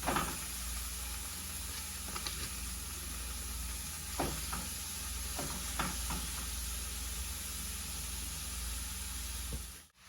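Cut-up Philly steak meat frying in butter in a hot pan, a steady sizzle, with a few scattered clicks of a utensil stirring it.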